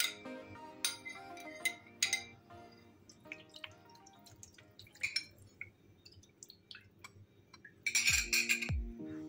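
A metal spoon clinks against a small glass bowl several times as tomato sauce is spooned out, over background music. Near the end comes a louder burst of scraping and pouring as the rest of the sauce is tipped from the bowl.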